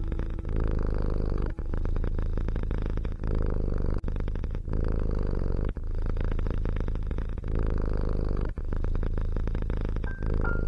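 Cat purring steadily and close up, with brief breaks every two seconds or so.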